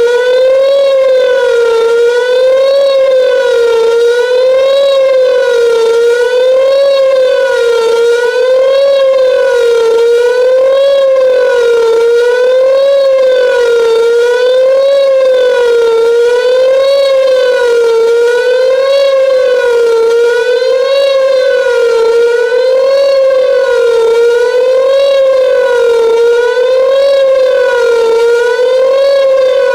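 Whelen WPS-2910 electronic outdoor warning siren sounding its Attack signal: a loud wavering tone that rises and falls about once every two seconds.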